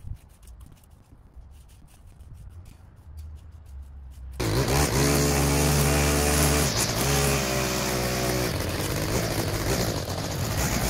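Faint clicks over a low rumble, then about four seconds in a loud engine sound cuts in suddenly and runs steadily, breaking off briefly twice.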